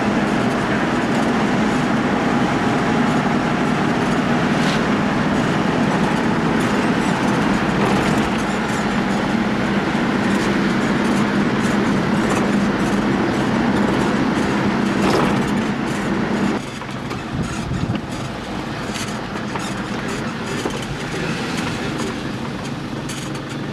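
Engine and road noise heard from inside a moving vehicle, a steady loud hum. About two-thirds of the way through, the hum drops away suddenly and the noise becomes quieter as the vehicle slows.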